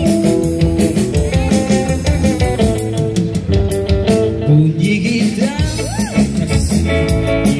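Street band playing live through a PA speaker: electric bass and guitar over a steady beat, with a singer's held, wavering note about six seconds in.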